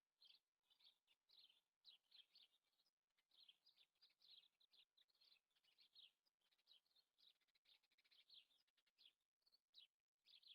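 Faint bird chirping: a run of quick, short, high notes repeating irregularly.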